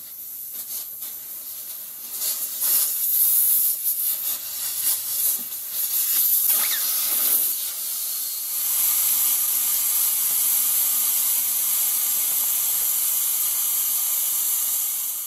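Air hissing out of a car tire through the open valve stem, its valve core unscrewed so the tire deflates. The hiss comes unevenly at first, then runs steady and strong through the second half.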